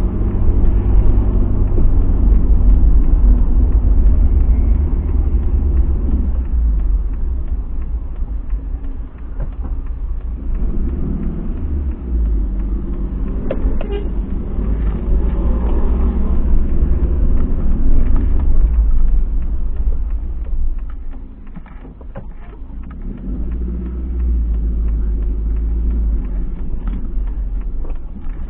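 Car engine and road rumble heard from inside the cabin while driving slowly, turning quieter for the last part as the car slows down.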